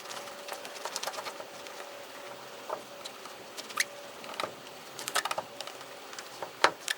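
Light, irregular clicking and scraping from hand-cleaning dirt off a Jeep Wrangler's hood at the latch mount spot, with a few sharper ticks in the second half.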